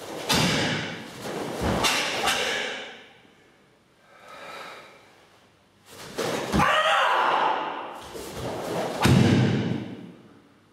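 A karateka performing a kata: the cotton gi snapping and rustling with each technique, and bare feet thumping on foam floor mats. The sounds come in several bursts with short pauses between them, and the heaviest thud falls about nine seconds in.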